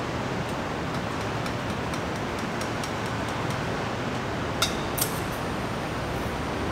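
Small clicks and taps from handling airsoft gas blowback guns and magazines, with two sharper clicks about two-thirds of the way through, over a steady background hiss.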